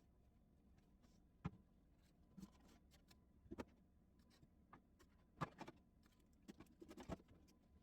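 Faint, scattered clicks and knocks of items being handled and set down in a small room, several in quick succession near the end.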